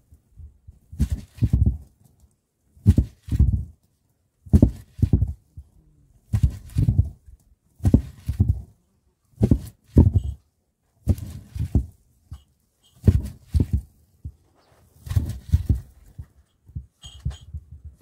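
A large round stone rolled back and forth on a flat stone slab, crushing dried pomegranate seeds: a low grinding rumble with each roll, about every two seconds.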